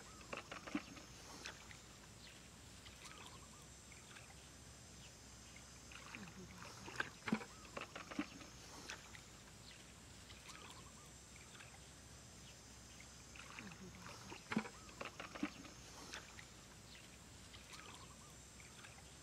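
Hands and feet splashing and squelching in shallow muddy water, in three short bursts: near the start, about seven seconds in, and about fourteen seconds in.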